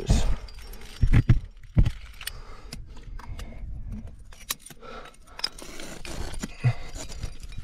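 Trad climbing rack of metal cams and carabiners jangling and clinking on the climber's harness while he moves up the crack, with a few dull thumps in the first two seconds.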